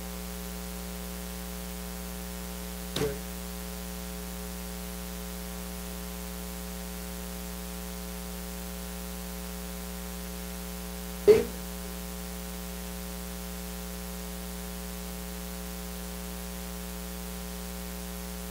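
Steady electrical hum with static from the microphone and sound system, a stack of even tones over a faint hiss. Two short sounds break through about three seconds and eleven seconds in, the second louder.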